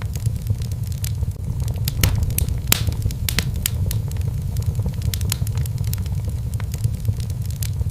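Fireplace fire crackling: irregular sharp pops and snaps over a steady low rumble of flame.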